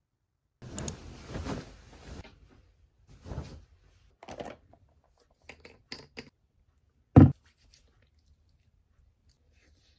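Handling noises: a couple of seconds of rustling, a few short scrapes and light clicks, then a single knock about seven seconds in.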